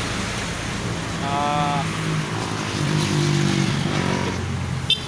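Road traffic: passing vehicles' engines, as a steady hum with a short higher tone about a second and a half in.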